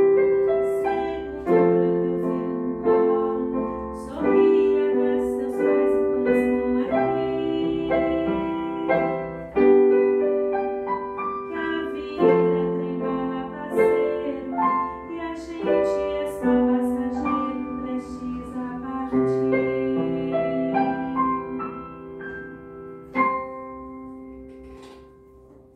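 Piano playing the closing bars of a slow song: chords and melody notes struck about once a second, each ringing and dying away, then a final chord near the end that fades out.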